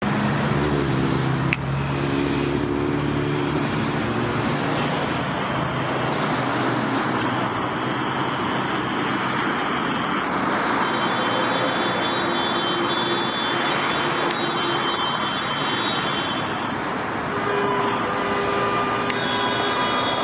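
Steady city street and traffic noise as a V3A-93 articulated tram passes close by through a stop and pulls away. A high whine joins in about halfway through and again near the end.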